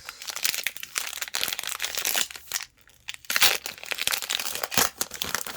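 Plastic trading-card pack wrapper being torn open and crinkled: a dense crackling that pauses briefly about three seconds in.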